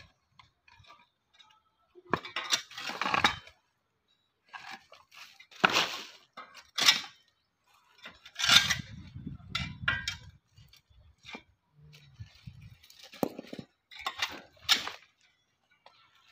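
A metal snake hook poking and scraping through brick and stone rubble: a string of separate clinks, scrapes and clatters, some of them loud.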